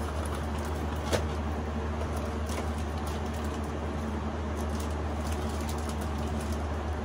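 Steady low hum and hiss of room noise, with a few faint clicks of handling, one about a second in.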